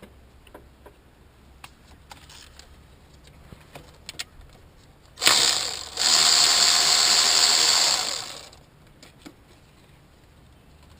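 A small motor-driven tool runs loudly for about three seconds: a short burst about five seconds in, then a steady run that dies away. Before it come light clicks and knocks of tools being handled.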